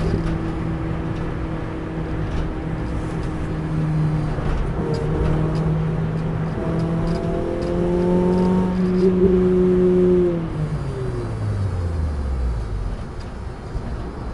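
Renault Clio RS 200's two-litre four-cylinder engine heard from inside the cabin under heavy road and tyre rumble, pulling steadily at around 5,000 rpm with the note creeping up in pitch. About ten seconds in the throttle comes off and the engine note falls steadily as the car slows for a corner.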